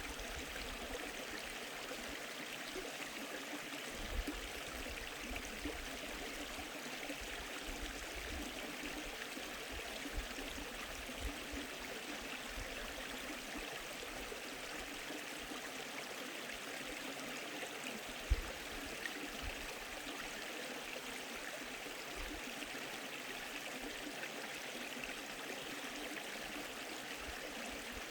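Valley stream flowing with a steady rushing babble. A few brief low bumps stand out, the loudest about 18 seconds in.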